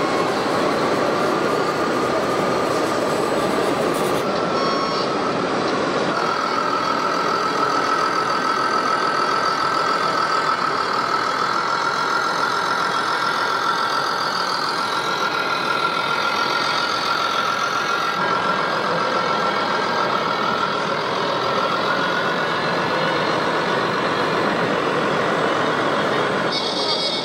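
Radio-controlled scale model trucks driving, with a steady, slightly wavering high whine over a dense running noise.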